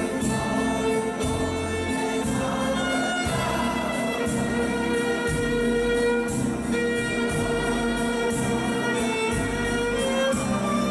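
Violin played live over a backing track with bass notes and a steady beat.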